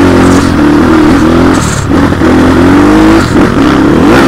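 Motorcycle engine running while riding, its note rising and falling with the throttle.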